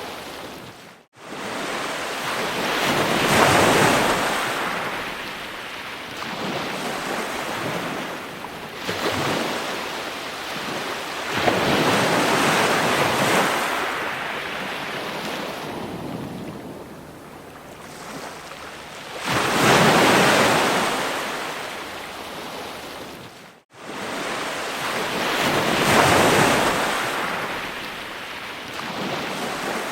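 Ocean waves breaking on a shore, each wave swelling into a loud rush of surf and washing away again every several seconds. The sound cuts out for an instant twice, about a second in and again some twenty seconds later.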